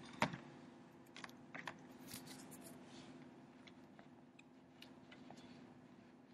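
Coffee-filter paper being handled on a tabletop: a sharp tap about a quarter-second in, then a few soft clicks and a brief papery crinkle around two seconds in, over a faint low steady hum.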